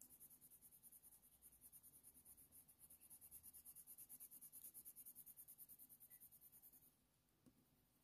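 Very faint scratching of a Faber-Castell Polychromos coloured pencil shading on hot-press watercolour paper, in quick, even back-and-forth strokes that stop about seven seconds in.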